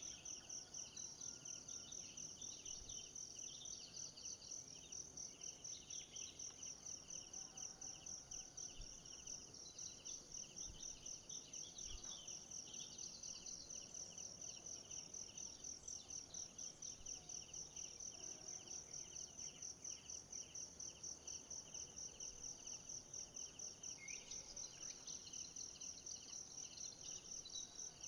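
Insects chirping in a steady, rapid, evenly pulsed rhythm, high-pitched, with a few faint bird chirps over it.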